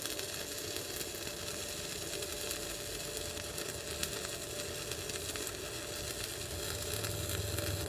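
Stick (MMA) welding arc from a CTC MMA-200T inverter welder burning a 3.2 mm electrode on steel plate: a steady crackling sizzle.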